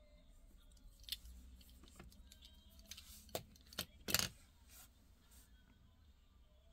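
Faint clicks and clinks of diecast toy cars being handled and set down, with a louder clatter about four seconds in.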